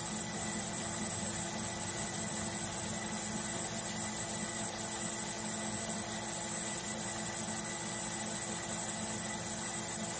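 Drill press motor running steadily as a 3/32-inch bit feeds down into the solid brass head of a cartridge case, drilling a pilot hole. A constant high whine sits over the motor's hum.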